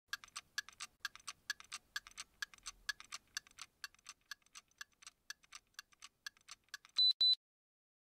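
Watch ticking, a quick steady run of about five sharp ticks a second that grows a little softer. About seven seconds in come two short, high beeps, the loudest sounds, and then the sound stops.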